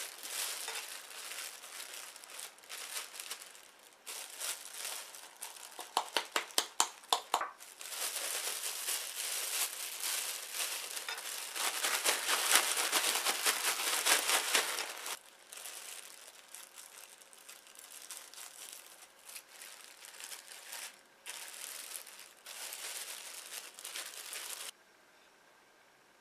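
Food packaging being crinkled and torn open by hand: a long spell of rustling and crackling, with a quick run of about eight sharp crackles about six seconds in and the loudest, most continuous crinkling a few seconds later. The crinkling stops shortly before the end.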